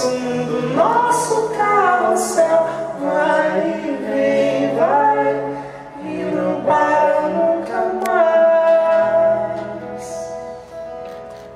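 Music: singing over instrumental accompaniment, with held notes and slides between pitches, fading down near the end.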